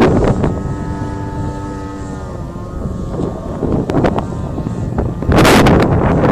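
Radio-controlled Extra 330S model aerobatic plane flying, its motor a droning tone that dips slightly in pitch and fades about halfway through. Heavy wind buffets the microphone, with a loud gust about five seconds in.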